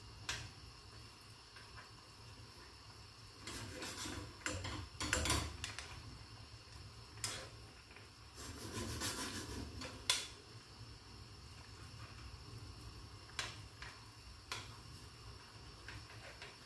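Metal spoon scraping and clinking against a nonstick frying pan as spareribs are stirred through thick gravy, in scattered bursts with a few sharp taps, the loudest around five and ten seconds in.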